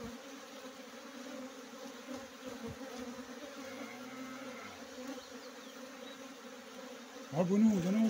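Steady, dense buzzing of a honeybee swarm pouring out of its log hive and clustering. Near the end a single bee flies close past the microphone, making a louder buzz that swoops up and down in pitch for about a second.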